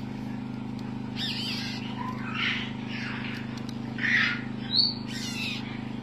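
Young African grey parrot chick calling in short, hoarse bursts, about six times, over a steady low hum. The calls are the begging of a hungry chick with an empty crop.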